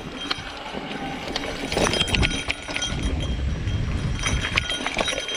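Mountain bike rolling down a dirt and rock trail: tyres running over dirt and stones with a steady low rumble, and the bike rattling and clicking irregularly as it hits bumps.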